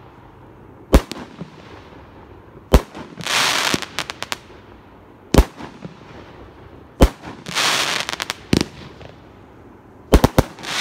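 Magnus 'Whispering Death' consumer fireworks cake firing: sharp bangs every one and a half to two and a half seconds, some followed by about a second of crackle, then a quick cluster of bangs near the end.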